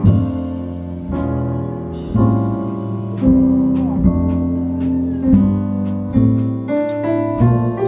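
Acoustic piano playing jazz chords, each struck chord ringing and fading before the next, in an uneven rhythm.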